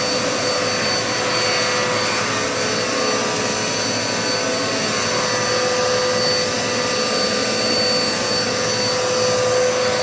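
Dirt Devil Multi-Surface upright vacuum cleaner running steadily while vacuuming the floor, its motor giving an even, steady whine.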